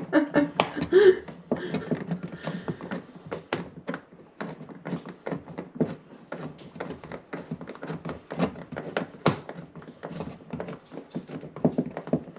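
Irregular light taps, clicks and knocks of hands working on a clothes dryer's vent hose connection, handling the duct and the machine in a tight gap.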